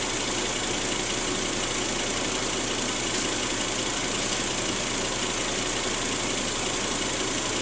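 Volvo XC90's engine idling steadily.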